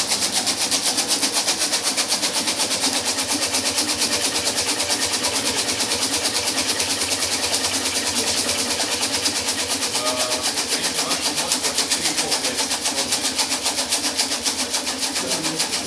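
Quanser Shake Table II running, driving its platform and the model bridge on it back and forth: a steady mechanical hiss with a rapid, even pulse.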